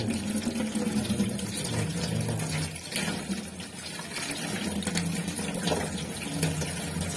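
Tap water running and splashing as turtles are rinsed, with a few light knocks.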